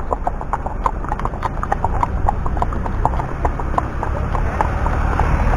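Horses' hooves clip-clopping at a walk on a tarmac road, a steady run of sharp knocks. A low rumble builds near the end.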